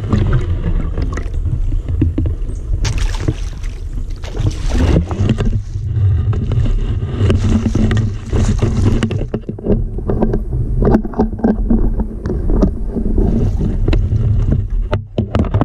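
Boat under way: its motor runs at a steady hum, with rushing water and wind noise over it that comes and goes.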